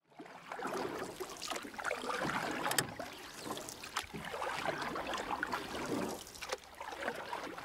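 Water lapping and trickling, irregular, with a few sharp little clicks and splashes.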